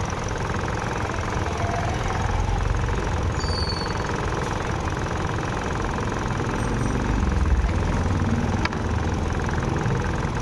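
Maruti Suzuki Swift four-cylinder petrol engine idling under the bonnet. It has a misfire on cylinder 1 (fault code P0301).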